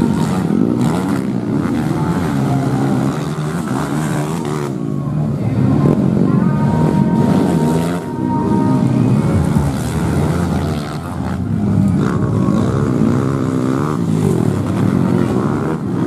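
Four-stroke trail motorcycle engines revving, their pitch rising and falling again and again as the bikes race, accelerate and shift.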